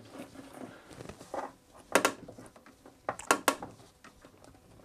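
DeWalt trigger clamp being squeezed tighter against a load, its trigger mechanism giving sharp clicks: one about two seconds in and a quick run of three about a second later, as clamping force climbs past 300 lb.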